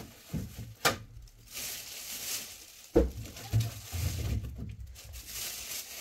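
Plastic shopping bag rustling and crinkling while items are put into the plastic drawers of a refrigerator's freezer, with a sharp knock just under a second in and another about three seconds in.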